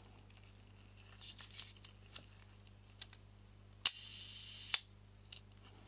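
Mamiya-Sekor C 127mm f/3.8 leaf shutter fired at a slow speed during a timing check after reassembly: a sharp click as the blades open, the shutter's slow-speed gear train buzzing for just under a second, then a sharp click as they close. A few light clicks and ticks come before it from handling the speed ring.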